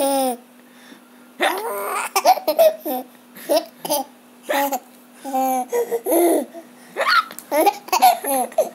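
Baby laughing in a string of short bursts, broken by hiccups, with a faint steady hum underneath.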